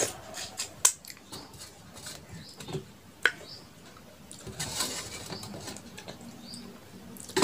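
Close-miked wet mouth sounds of finger-licking after eating with the hand: fingers sucked and licked clean, with lip smacks and two sharp clicks about one and three seconds in.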